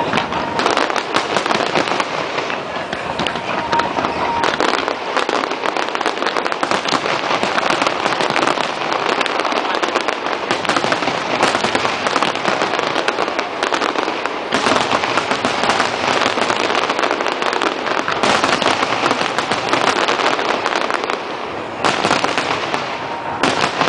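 Aerial fireworks display: a dense, continuous barrage of shell bangs and crackling, many bursts overlapping each second.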